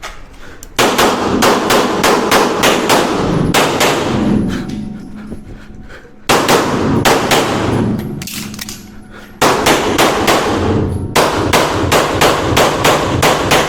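Beretta 92 9mm pistol fired in rapid strings, three bursts of quick shots separated by pauses, echoing off the walls of an indoor range.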